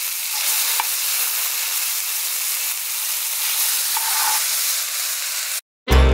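Masala-coated fish steaks frying in oil on a flat iron tawa: a steady sizzle that cuts off suddenly near the end, with music starting just after.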